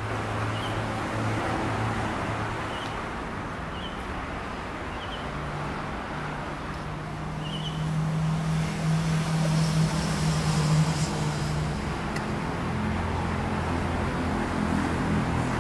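Road traffic noise: a steady hum of passing cars, with one vehicle passing louder about eight to eleven seconds in. A few faint short high chirps sound in the first half.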